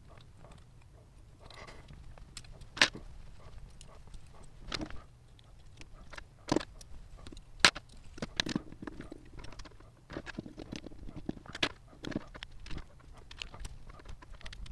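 Handling noise from the FLSUN T1 Pro print head's small plastic and metal parts (fan, heatsink, circuit-board housing) being fitted back together: scattered clicks and taps at irregular intervals, with soft rubbing and rustling between them.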